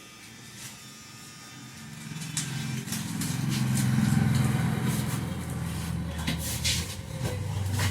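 A motor vehicle's engine running close by, growing louder about two seconds in and then holding a steady low drone, with a few sharp clicks near the end.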